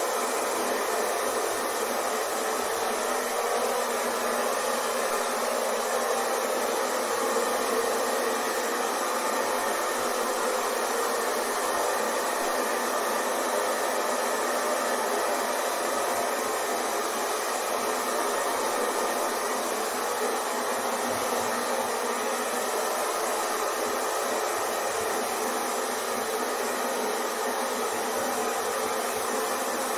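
Hair dryer running steadily: an even rushing noise of fan and airflow with no change in pitch or level.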